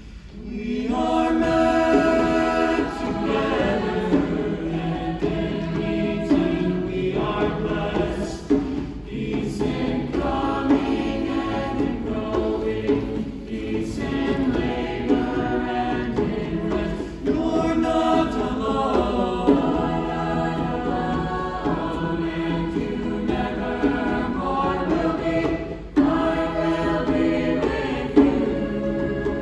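Mixed choir singing in harmony, coming in strongly about a second in and sustaining long sung chords, with a djembe tapping along underneath.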